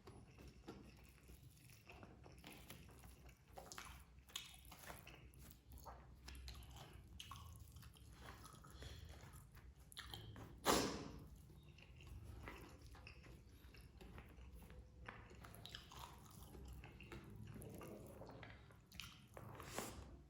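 Close-up eating sounds: a person chewing and biting a rice meal, with irregular wet smacks and crunches. One louder, sharp sound comes about halfway through.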